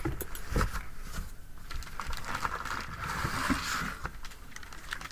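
Packaging being handled by hand: scattered clicks and light knocks, with a longer rustle about three and a half seconds in.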